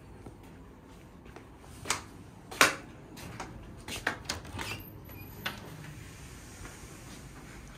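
A heavy wooden door being opened: a series of sharp clicks and knocks from its lever handle and latch, with the loudest knock about two and a half seconds in and a quicker cluster in the middle.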